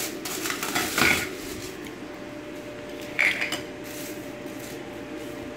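Handling clatter as an angle grinder is lifted out of its box and packaging: scattered clicks and a few sharp knocks, the loudest about a second in and another about three seconds in, over a faint steady hum.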